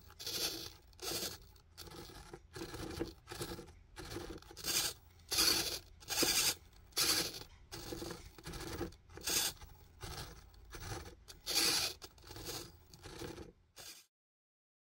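Hobby servos in a 3D-printed pan-and-tilt camera mount whirring in short, grating bursts, roughly one or two a second, as the head tracker drives the mount to follow the moving FPV goggles. The bursts stop suddenly near the end.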